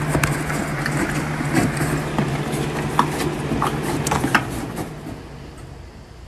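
Horse nosing and eating in a plastic feed tub: irregular sharp clicks and knocks of muzzle and teeth against the plastic. Under them runs a steady low hum that fades out near the end.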